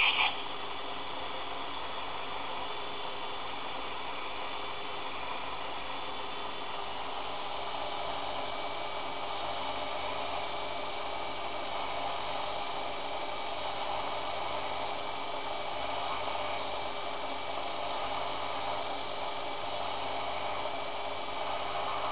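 Einhell BT-ML 300 mini lathe running at a steady speed while a twist drill in the tailstock bores into a spinning brass rod, a steady motor whine and hiss with several held tones. A brief high squeal cuts off right at the start.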